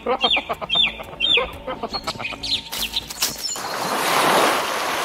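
Dubbed creature sound effects for a toy raptor: a run of short squawks, each falling in pitch, about two a second, over quick clicking chatter, much like a clucking chicken. About three and a half seconds in, a rushing whoosh of water swells as a cartoon wave transition sweeps over.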